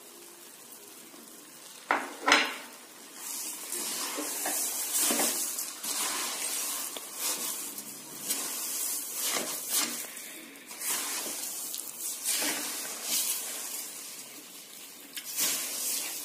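A spatula scraping and stirring a thick halwa mixture in a metal kadhai, with a sizzle from the hot ghee, as sugar and milk are worked into the fried chana dal paste. The strokes come irregularly, a few seconds apart, starting about two seconds in.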